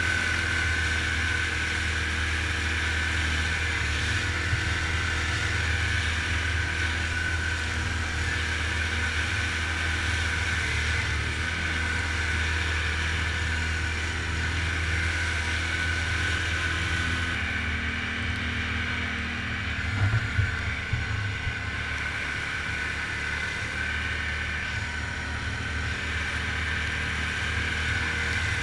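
Quad bike (ATV) engine running steadily while riding through shallow floodwater, with water splashing off the tyres. A few louder knocks come about two-thirds of the way through.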